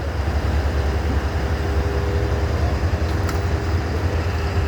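Steady low rumble of heavy vehicle engines idling in street traffic, with a faint steady tone joining about two seconds in.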